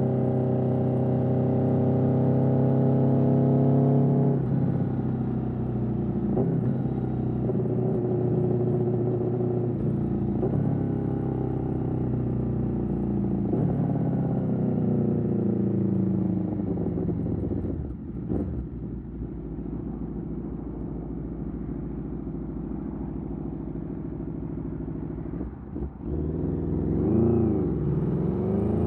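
Aprilia Tuono V4's V4 engine through an Austin Racing GP1R exhaust, pulling hard through the gears with several quick upshifts. The revs then fall away on the overrun and settle lower, with a short blip, before climbing sharply again near the end.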